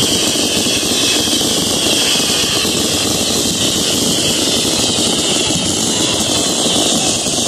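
Fireworks display barrage: aerial shells bursting and crackling so rapidly that the reports run together into one continuous, loud din, with no let-up.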